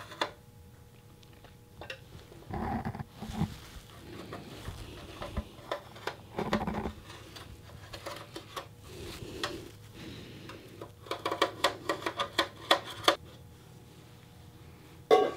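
Quiet handling sounds: a felt-tip marker scratching over an aluminum mesh grill topper, and a stainless steel cup clinking and scraping on the mesh. There are a few louder scrapes and a quick run of light clicks late on.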